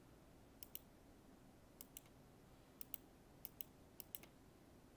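Computer mouse buttons clicking in quick double ticks, probably press and release, about five times at irregular intervals over faint room hiss.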